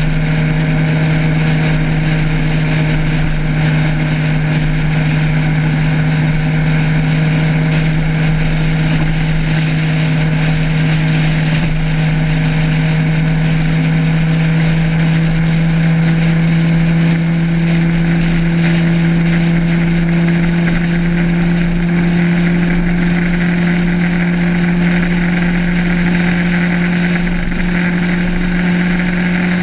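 Motorcycle engine running steadily at cruising speed, a constant drone whose pitch creeps slowly upward in the second half as the revs rise.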